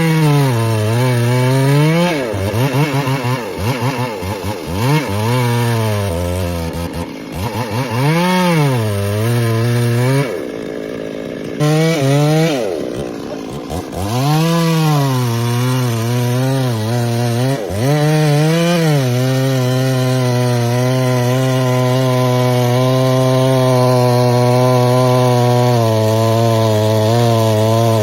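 Two-stroke chainsaw engine revving up and down over and over, dropping off briefly twice, then held at a steady high speed for the last third, cutting into wood.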